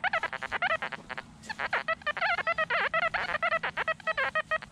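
Metal detector target tones: a rapid, chopped run of warbling pitched beeps, pausing briefly about a second in and then continuing, signalling metal still in the dug hole.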